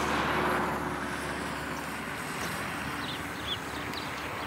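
Minibus passing close and driving away: its tyre and engine noise is loudest at the start and slowly fades as it recedes down the road, over a steady low hum.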